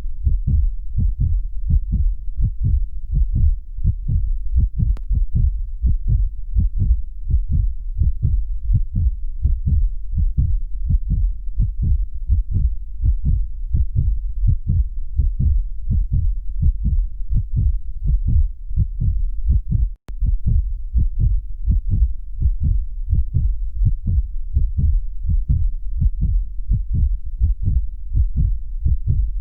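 Human heartbeat sound effect: low, deep beats repeating in a steady, even rhythm over a constant low rumble, with a momentary dropout about two-thirds of the way through.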